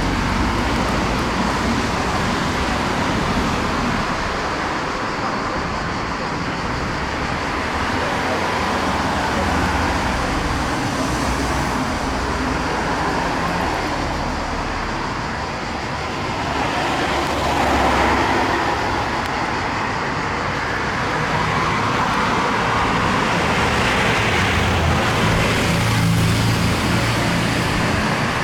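Road traffic noise: a steady wash of motor vehicles that swells and fades slowly.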